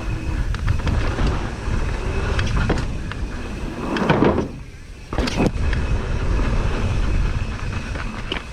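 Downhill mountain bike running down a dirt trail: wind rumble on the microphone with tyres and frame rattling over the ground, and scattered sharp knocks. A little past halfway the sound drops away briefly and then a sharp knock comes, typical of a jump and its landing on a tabletop.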